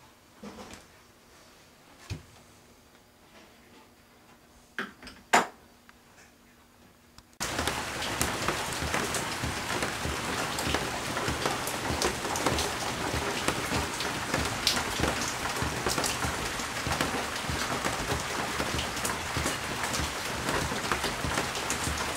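Quiet at first, with a few light clicks and knocks, the loudest about five seconds in. About seven seconds in, a steady crackling hiss starts abruptly and carries on at an even level.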